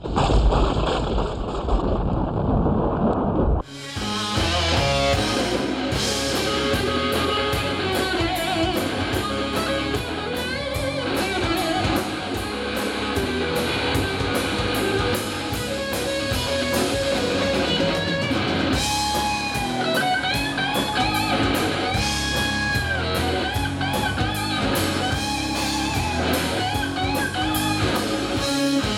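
A rumbling noise like thunder for the first few seconds, then a Southern rock band playing live: electric guitars over a drum kit and bass, with the lead guitar bending notes in the second half.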